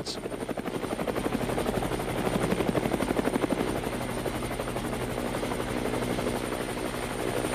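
Bell AH-1 SuperCobra twin-turboshaft attack helicopter in flight: a fast, even rotor beat over a steady engine hum, with a thin high turbine whine.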